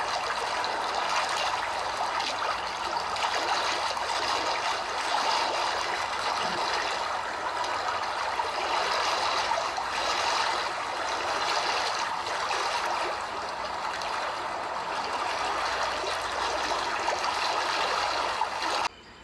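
Steady rushing noise of running water, cutting off suddenly near the end.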